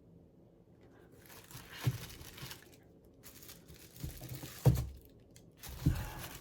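Plastic crinkling and rustling while the CNC-machined controller box is handled, with three light knocks.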